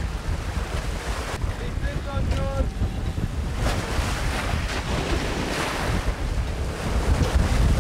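Rough swell splashing and churning against a sailboat's stern, with heavy wind rumble on the microphone.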